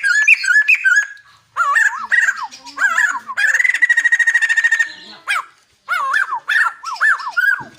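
A songbird singing a varied song of quick whistled slurs and glides in phrases, with a fast buzzy trill in the middle and brief pauses between phrases.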